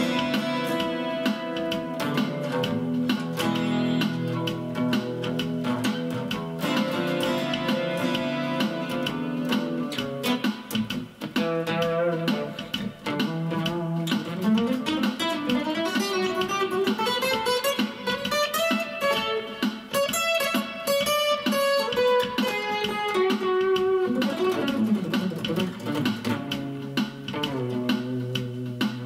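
Acoustic guitar played through a Zoom G1 Four effects pedal into a Cube-10 amp set to its JC Clean sound with a little reverb. It plays plucked chords, then from about halfway a single-note melody that climbs and falls back down.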